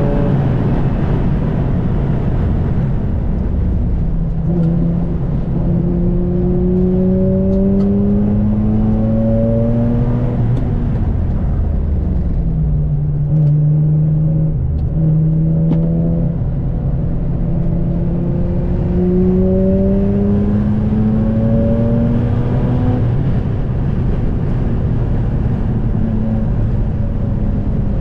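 2004 Mazda RX-8's twin-rotor rotary engine under hard track driving: the engine note climbs steadily under acceleration, falls back and holds in the middle as the car slows, then climbs again, with a sudden drop near the end from a gear change before it rises once more.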